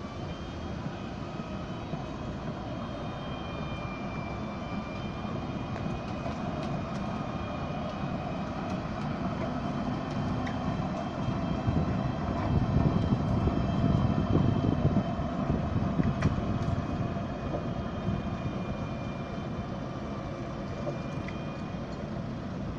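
Alstom Citadis tram running past on its tracks, its rolling rumble swelling to a peak about halfway through and then easing, over steady street noise with a faint steady high whine.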